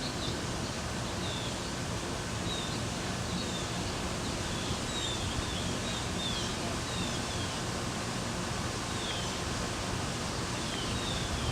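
Birds chirping: many short, falling chirps, one every second or so, over a steady background rush of outdoor noise.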